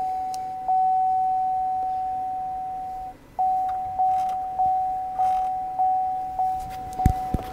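Warning chime of a GM half-ton pickup switched on with the engine not running: one long tone that fades over about two and a half seconds, then the same chime repeating a little under twice a second. A couple of short knocks near the end.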